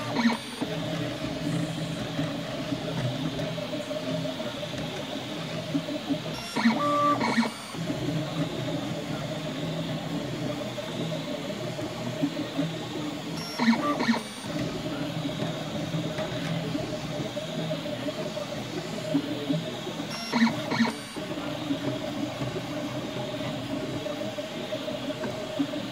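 FDM 3D printer printing: the stepper motors whir as the print head moves, with a steady hiss over them. About every seven seconds there is a louder, busier burst of movement.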